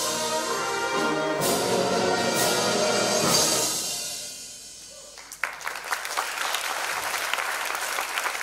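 School symphonic band playing the closing chords of a brass-led fanfare, with two sharp accented hits; the final chord dies away, and about five seconds in the audience breaks into applause.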